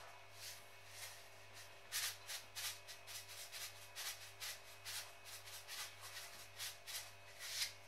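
Salt being shaken from a plastic salt canister into a steel bowl of rice flour: a faint run of short, dry shakes, about two a second, with the last one near the end a little louder.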